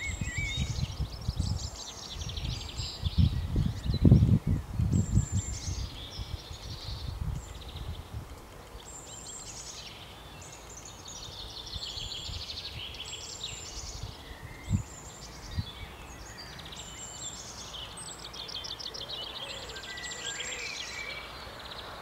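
Songbirds chirping and twittering in quick repeated phrases, with several birds overlapping. Gusts of wind rumble on the microphone for the first six seconds or so, strongest about four seconds in.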